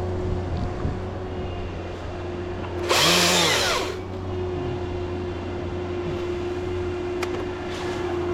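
Husqvarna chainsaw idling steadily, with one short rev of the throttle about three seconds in.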